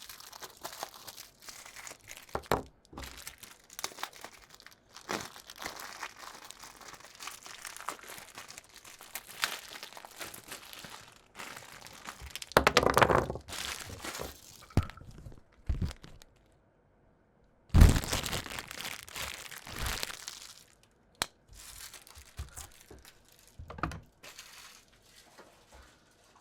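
Packaging wrap being handled and unwrapped, crinkling and tearing in irregular bursts. It is loudest about halfway through and again about two-thirds in, with a brief pause between.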